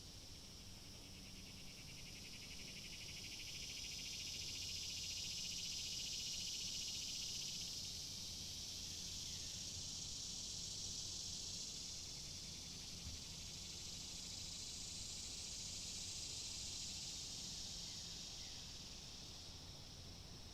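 Cicadas buzzing in a continuous high-pitched chorus that swells and fades in waves, loudest about 4 to 7 seconds in and again around 16 seconds.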